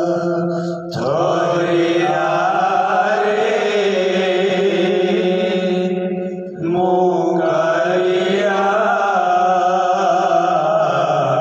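Men of a kirtan party singing a Jagannath bhajan together in long, drawn-out held notes, with a short break about a second in and another just past the middle.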